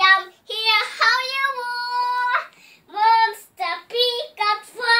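A young child singing in a high voice, with a long held note about two seconds in, then a string of short sung notes.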